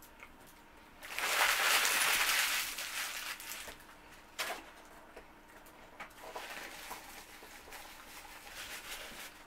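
Paper fast-food wrapper rustling loudly for about two and a half seconds, then a single sharp click, followed by fainter rustles and eating sounds.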